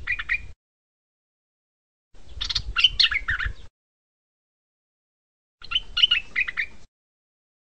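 Stripe-throated bulbul singing: short phrases of quick chirping notes, three times, a couple of seconds apart.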